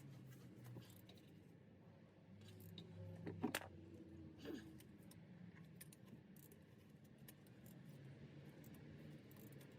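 Near silence broken by a few faint metallic clicks and a short scrape about three and a half seconds in, and another about a second later: a hand tool working at the oil filter.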